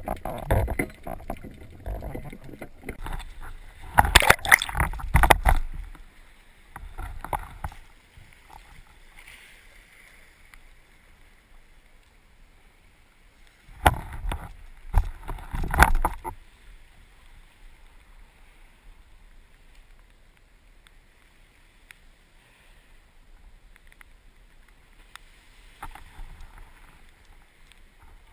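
Water splashing and bubbling around a camera in the sea, in two loud bouts about four seconds and fourteen seconds in, with quieter sloshing between.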